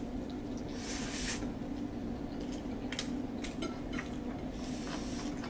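Eating by hand: soft squishy sounds of fingers working rice on a plate and chewing, with a few short noisy bursts, over a steady low hum.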